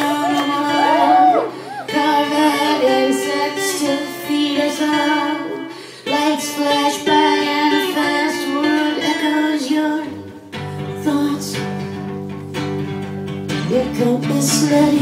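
A woman singing live into a microphone while playing an acoustic guitar; lower guitar notes come in about ten seconds in.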